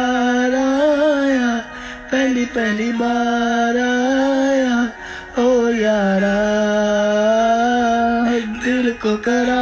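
A Hindi song in which one voice sings long, drawn-out notes, each held for a second or two, with short breaks between phrases.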